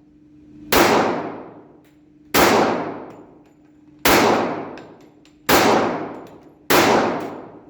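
Five single gunshots fired at an unhurried pace, about one and a half seconds apart, each followed by a long ringing echo that fades over about a second.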